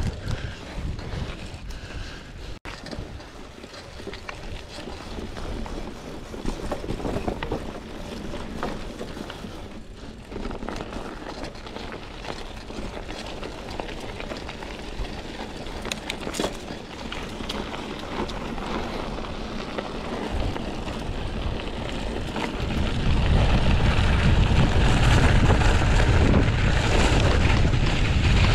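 Wind buffeting the microphone during a mountain bike ride, a steady noisy rush with a low rumble that grows much heavier and louder in the last few seconds. A single sharp click about halfway through.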